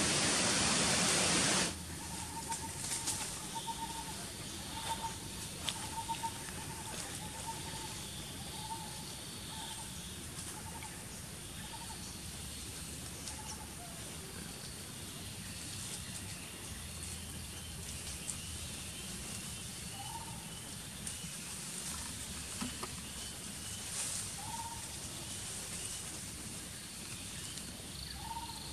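A loud hiss cuts off suddenly about one and a half seconds in. A forest background follows, where a bird repeats a short call note a little under twice a second for about nine seconds, with fainter higher chirps and a few short rising calls later on.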